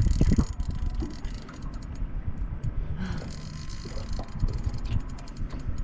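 Fishing reel clicking in fast, irregular runs while a large shark is played on the line, over a low rumble that is loudest in the first half second.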